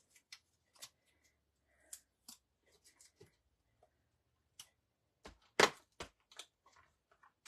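Light rustling and small clicks of paper die-cut pieces and plastic being handled on a die-cutting plate, with one sharper tap a little past halfway.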